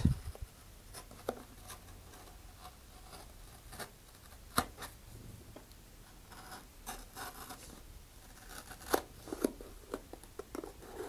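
Hobby knife blade slicing through a thick paper rocket body tube at an angle: faint scraping cuts with scattered short clicks, a few of them sharper.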